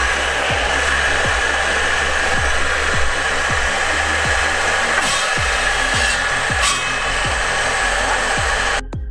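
Table saw running with a steady high whine and a rough rubbing noise as its blade grabs a wooden broomstick inside a slotted iron pipe. The noise cuts off abruptly near the end. Background music with a steady thumping beat plays underneath.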